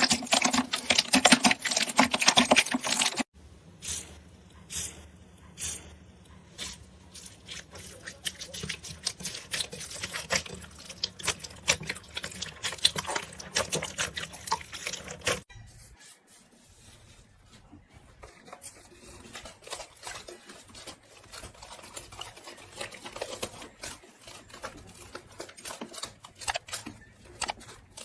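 Close-miked crisp crackling and clicking of a material being cut or handled, in three clips that change abruptly about 3 and 15 seconds in. The first clip is the loudest.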